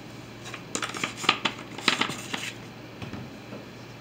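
Spice jars being handled and shaken over the pan: a quick run of clicks and rattles from about a second in, lasting a couple of seconds, with a few fainter clicks after.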